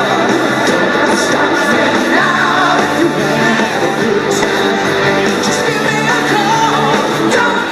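Rock-and-roll style music with a singing voice, played steadily at a loud level.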